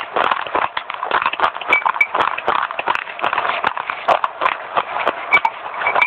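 Close-miked chewing of crunchy baked edible clay: a rapid, irregular run of sharp crunches and cracks.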